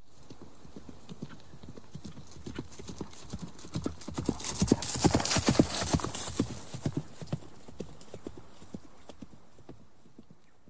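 Horse hooves clip-clopping, growing louder to a peak about halfway through and then fading away, as of horses riding up and passing.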